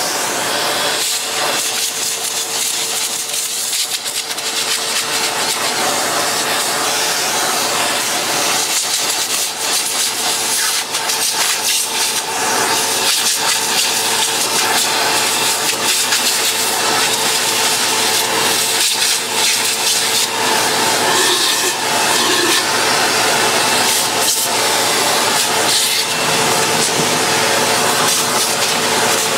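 Vacuum cleaner running steadily at full suction with a steady whine, its wand worked over a Dyson brush roll and cleaner head to suck out trapped fluff. Short knocks and rattles come as the nozzle moves against the plastic.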